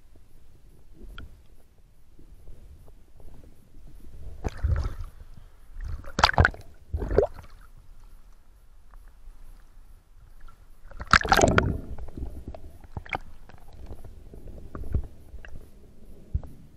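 Water splashing and gurgling around a freediver's camera as it breaks the lake surface and goes back under, in several short bursts, the loudest a little after the middle.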